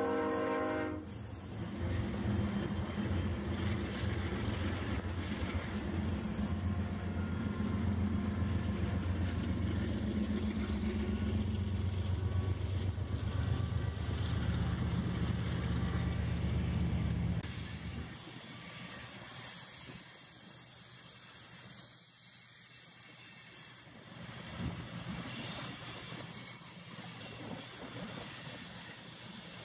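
Freight train passing close by: a horn blast cuts off about a second in, then the BNSF diesel locomotives rumble past. About halfway through the engine rumble drops away, and the covered hopper cars roll by with a thin, high-pitched wheel squeal.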